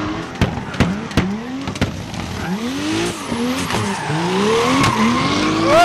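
Two drift cars' engines revving up and down again and again through a tandem drift, over a hiss of tyres squealing and skidding, with several sharp pops in the first two seconds and one more near the end.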